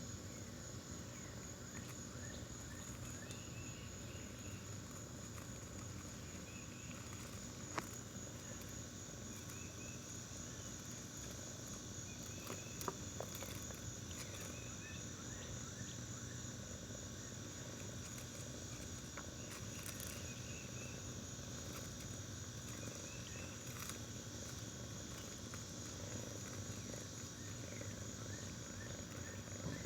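Steady high-pitched insect drone, with faint short chirps repeating every few seconds and two sharp clicks, about 8 and 13 seconds in.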